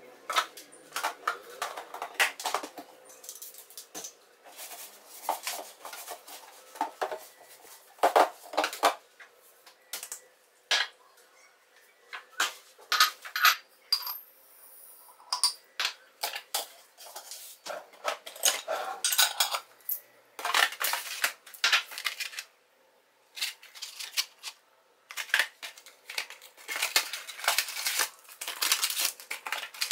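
Glass jars and plastic containers clinking and knocking as they are handled on a kitchen counter, with dried herbs tipped from one glass jar into another. Paper tea-bag sachets crinkle near the end.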